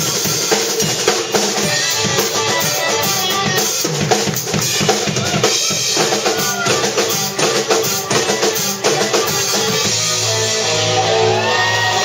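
Jazz-fusion band playing live: a busy drum kit with bass drum and snare hits drives electric guitar, bass guitar and keyboard. About ten seconds in the drumming eases and long held notes with a bending high line take over.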